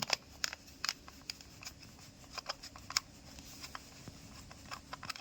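Irregular small clicks and taps from a hand tool tightening screws on a machine's cover.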